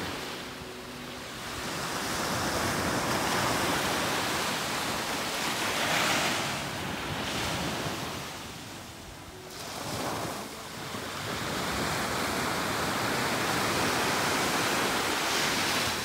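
Small waves breaking and washing up a sandy beach. The surf swells and eases in turns, with a lull about nine seconds in.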